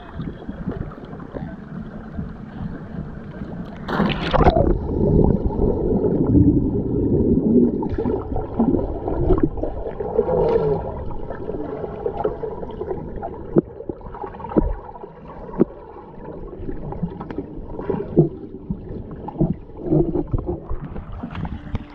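A cannonball jump hitting a swimming pool: a loud splash about four seconds in, then muffled underwater bubbling and churning heard through a submerged action camera. A few sharp knocks stand out later on.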